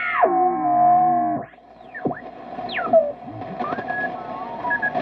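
Electronic whistles and tones over a steady tone: a stacked tone sweeps down, holds for about a second and cuts off, then shorter sliding whistles and brief beeps follow.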